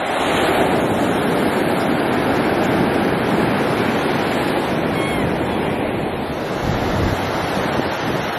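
Small ocean waves breaking and washing up a sandy beach, with wind buffeting the microphone now and then. A short gull cry is heard about five seconds in.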